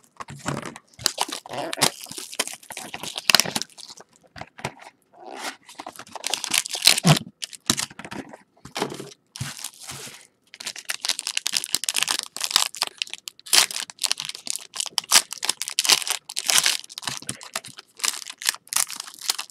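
Plastic wrapping crinkling and tearing, with irregular rustling and cracks, as a sealed box of 2014 Topps Tier One baseball cards and its pack are unwrapped and opened. The handling grows busier and more continuous about halfway through.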